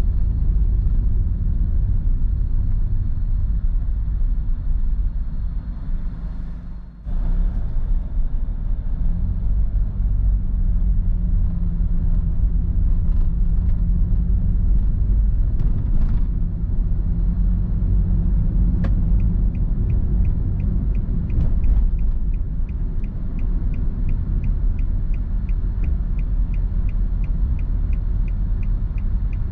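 Car's road and engine noise heard inside the cabin, a steady low rumble that dips briefly about a quarter of the way in. From about two-thirds through, a turn-signal indicator ticks steadily, a little over two ticks a second.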